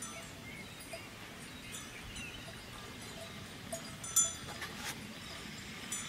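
Small bells on grazing cattle clinking irregularly as the cows move their heads, with one louder clink about four seconds in.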